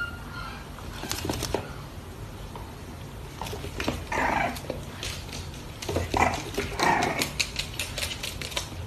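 Two puppies playing on a hard floor: claws and paws clicking and skittering on the boards, with a few short puppy growling noises about four, six and seven seconds in.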